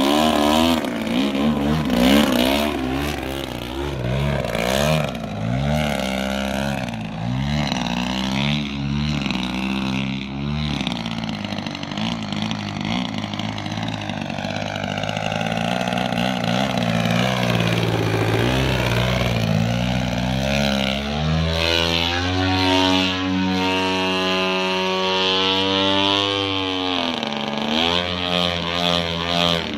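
Petrol engine of a radio-controlled 3D aerobatic plane in flight, its pitch rising and falling with throttle and passes: a fast warble in the first half, then a slower sweep with one deep dip, then a steadier, higher run broken by two short dips near the end.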